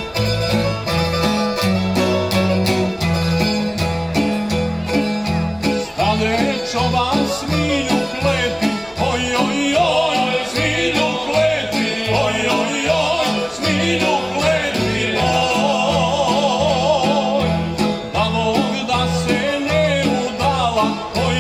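Tamburica ensemble playing a folk song: plucked tamburas over a double bass line. About six seconds in, a man starts singing with a wide vibrato.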